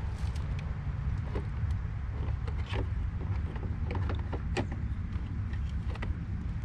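Plastic airbox parts clicking and creaking as they are handled and pushed back into a motorcycle, a few scattered knocks over a steady low rumble.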